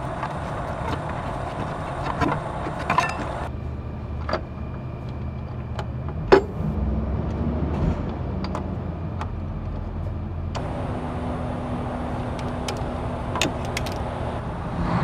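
A new ribbed serpentine belt is worked by hand over the pulleys of a Cummins ISX15 diesel engine: scattered clicks and knocks of belt and hands on the pulleys, the loudest about six seconds in. Under them runs a steady low shop rumble, with a hiss that stops about three and a half seconds in and returns near ten and a half.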